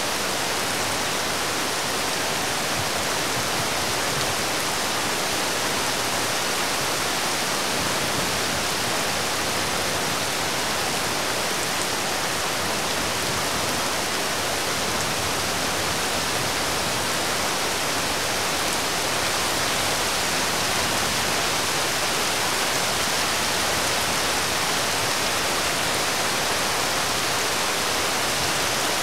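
Steady rain falling, an even hiss that holds at one level without let-up.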